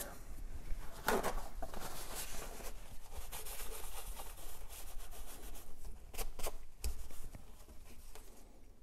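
Paper towel rubbing back and forth over a thin flat gasket on a wooden workbench, a rough scrubbing hiss lasting several seconds, followed by a few short knocks and rustles as the gasket is handled.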